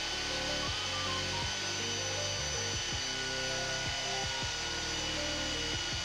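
Electric pipe threading machine running steadily, its die head cutting a thread on the end of a 15A steel pipe.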